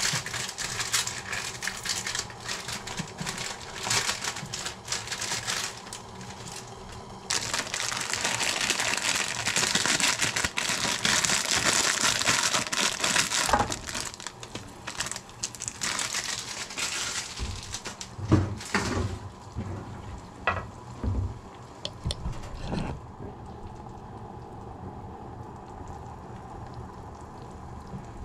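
Crinkling and crackling of a plastic instant-noodle (pancit canton) packet being handled, torn open and emptied, with a dense hiss in the middle and scattered clicks and knocks. Near the end it settles to a quieter steady hiss of the saucepan of water heating on the electric hob.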